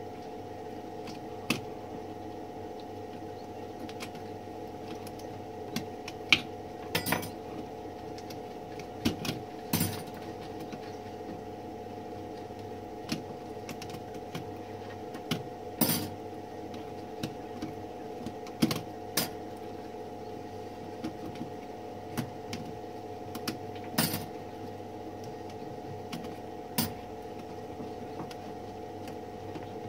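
Small metal typewriter parts clinking and tapping against each other and the work surface as they are handled, about twenty sharp irregular clicks, over a steady machine hum.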